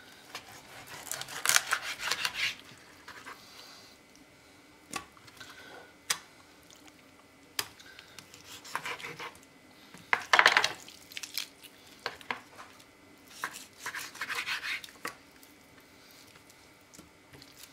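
A kitchen knife cutting raw nutria meat into pieces on a wooden cutting board: several short bouts of scraping, sawing strokes, the loudest about ten seconds in, with single sharp taps of the blade or meat on the board in between.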